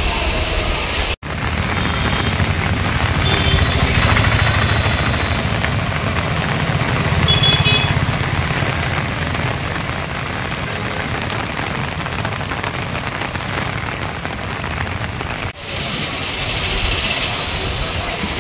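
Heavy rain falling on a town street, a steady hiss with a low rumble and the sound of motorbikes and traffic passing through the wet road. A few short high tones come about two and seven seconds in. The sound drops out briefly twice, about a second in and near the end.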